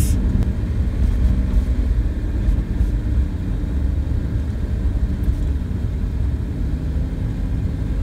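Steady low rumble of tyre, road and engine noise heard inside the cabin of a moving car, with a faint engine hum.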